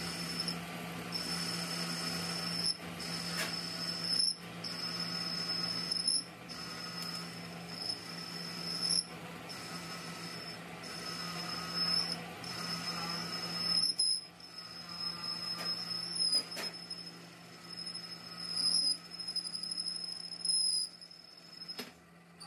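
Metal lathe turning a steel truck wheel-hub part: a steady motor hum under a high-pitched whine from the cut, which breaks off and comes back every second or two, with a few sharp clicks. It grows quieter about halfway through.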